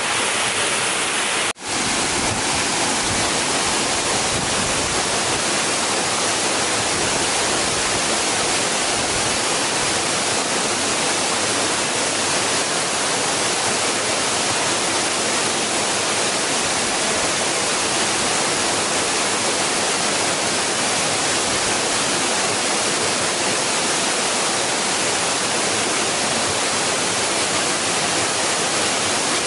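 Waterfall rushing: a loud, steady roar of falling water, with a momentary break in the sound about a second and a half in.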